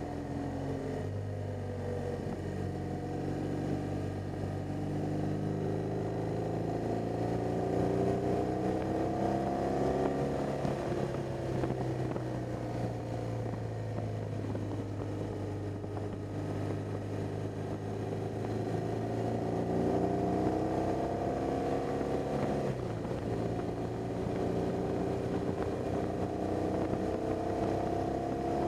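BMW R 1200 GS boxer-twin engine running under way, its pitch rising and falling as the rider speeds up and eases off, with a couple of sudden drops in pitch.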